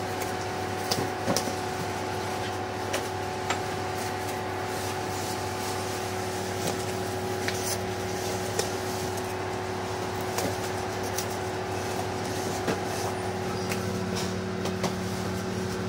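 A steady hum holding several unchanging tones, with a second low tone joining near the end. Scattered light clicks and rustles of parts and foam packing being handled sit on top of it.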